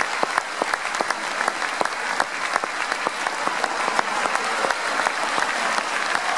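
Large audience applauding steadily: a dense stream of many overlapping hand claps.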